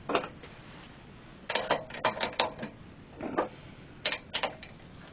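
Irregular metallic clicks and clinks of a Jacob's chuck being seated in a four-jaw lathe scroll chuck while the jaws are tightened with a key. The clicks come in short clusters, the busiest about one and a half to two and a half seconds in and again near the end.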